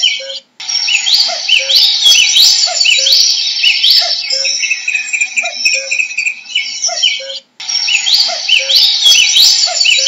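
Common cuckoo calling its low two-note 'cuck-oo', a falling pair repeated about once a second, over a dense chorus of other songbirds with quick rising whistles and chirps. The sound cuts out briefly about half a second in and again about three quarters of the way through.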